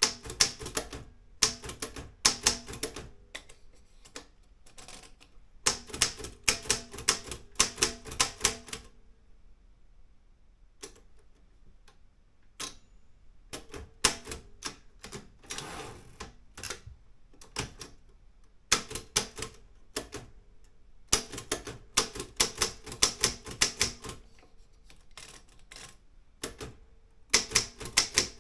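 Olympia M8 manual typewriter being typed on: runs of rapid key strikes, broken by pauses of a few seconds. In the longest pause, about ten seconds in, there are only a few single clicks.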